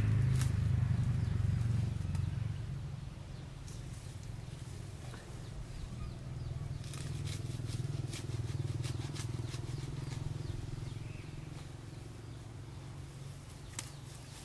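A small engine running with a low hum, loudest for the first two seconds, then quieter and steady, with scattered light clicks over it.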